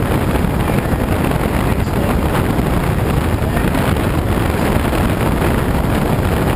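Steady rush of air over a glider's canopy in flight, heard from inside the cockpit as an even, mostly low rumble with wind buffeting the microphone.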